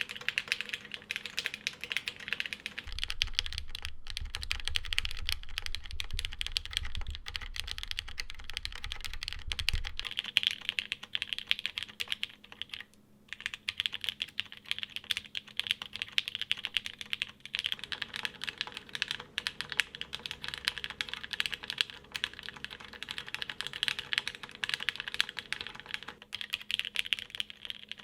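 Typing on a plateless, tadpole-mount TKL mechanical keyboard with lubed and filmed JWK Black linear switches and JTK keycaps. The keystrokes come as a rapid, steady clatter, with a brief pause about thirteen seconds in.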